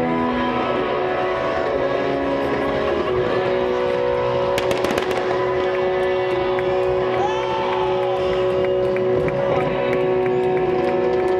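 Stage fireworks going off with sharp crackles and bangs, thickest in a cluster about five seconds in, over held chords of amplified live music from the stage.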